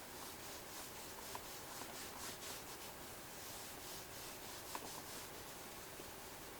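Faint rubbing strokes on the wallet's leather, a quick series of short back-and-forth passes at about three a second, with a few light clicks.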